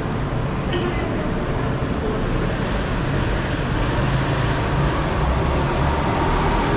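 City street ambience with steady road traffic noise, a low vehicle engine rumble growing louder toward the end.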